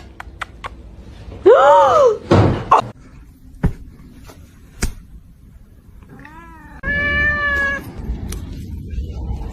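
Cat meowing: an arched meow about one and a half seconds in, then a shorter call and a long, drawn-out meow near the end, with a few light knocks in between.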